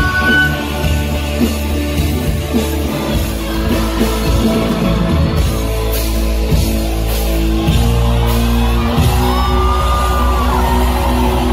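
Live rock band playing: strummed acoustic and electric guitars over bass guitar and drums, with a voice singing.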